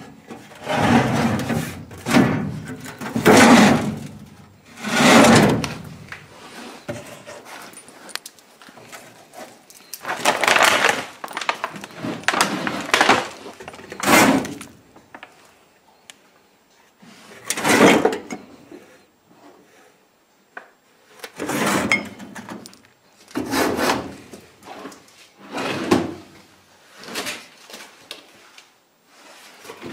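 Metal drawers of an old steel cabinet being slid open and shut over and over, each a scraping slide ending in a clunk, about a dozen in all.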